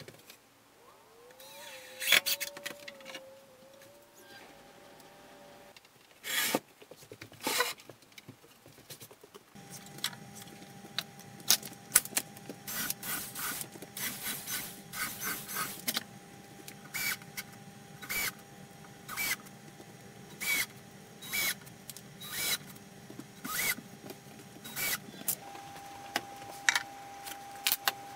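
A cordless drill runs in short bursts, driving screws into a plywood cabinet box, with clicks and knocks of wood and tools in between. A steady hum runs under the middle part.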